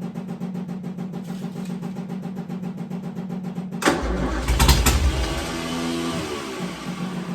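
1965 Austin-Healey's engine being cranked by its starter with a fast, even rhythm. About four seconds in it catches with a loud burst and runs for a second or two, dropping in pitch as it dies, then the starter cranks again. The engine is being fed fuel from a jug.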